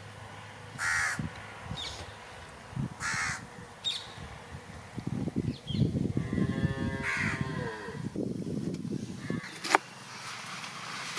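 Crows cawing, two short calls about two seconds apart, followed by several seconds of low rumbling, knocking noise and two sharp clicks near the end.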